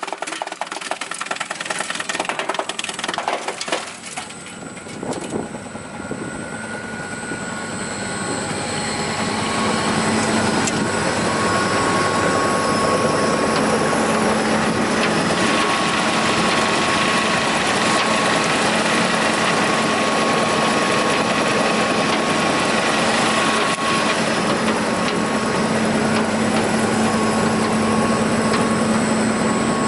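Klöckner 120×400 wood chipper at work. For the first few seconds there is a dense, uneven crackle of knocks, then the sound builds over a few seconds into a steady, loud mechanical running with a constant hum.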